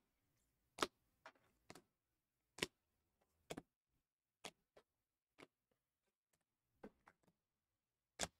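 Clear hard plastic trading-card cases clicking and tapping against each other as a stack of cased cards is flipped through by hand: about a dozen sharp, irregular clicks.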